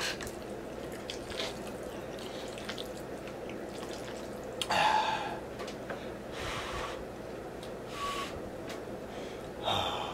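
Several wet slurps of spaghetti sucked off a fork, the loudest about five seconds in, over the steady hum of a room fan.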